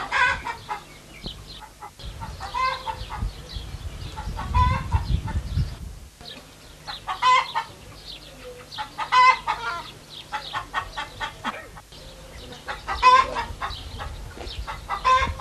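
Chickens clucking in short bursts, several times over, with a low rumble on the microphone for a few seconds in the first half.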